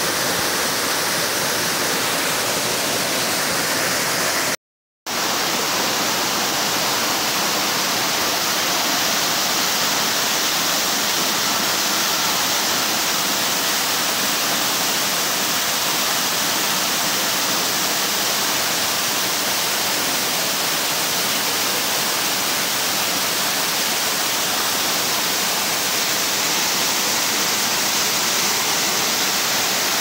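Waterfall falling into a rocky river pool: a loud, steady rush of water, broken by a split-second silent gap about five seconds in.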